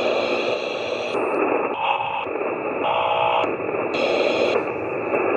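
Spirit box sweeping through radio stations: hissing static that jumps abruptly every half second to a second, with brief snatches of tone between.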